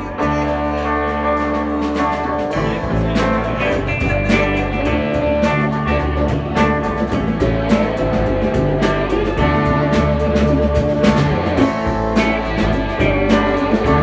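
Live band playing an instrumental rock passage: electric guitars, electric bass, drums and hand percussion. The percussion picks up and gets busier about three seconds in.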